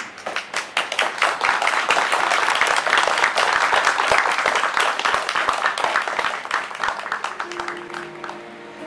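A crowd of guests applauding. The clapping starts scattered, swells quickly into full applause and thins out near the end as music begins.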